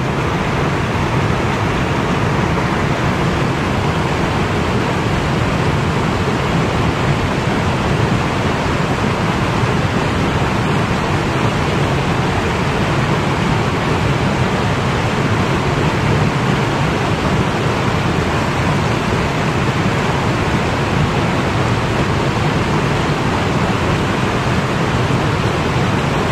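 Steady rushing of a stream's flowing water.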